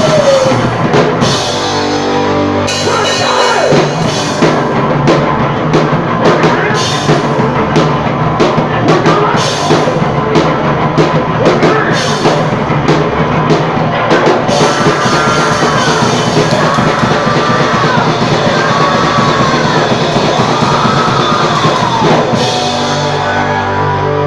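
Loud rock music with a driving drum kit, with sliding pitched notes, guitar bends or vocal lines, in the second half.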